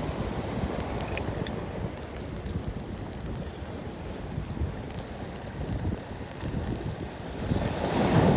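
Wind rumbling against the phone's microphone, with waves breaking on the shore underneath; it grows louder near the end.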